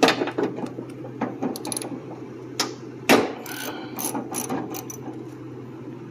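Hand socket ratchet clicking as it turns a bolt in a car door's inner panel, in short irregular runs of clicks, loudest right at the start and about three seconds in.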